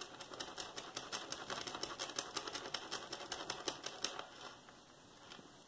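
Small black-finished metal chain rubbed at one corner in quick strokes to test what metal lies under the black, its links clicking rapidly, about nine or ten times a second, stopping about four seconds in.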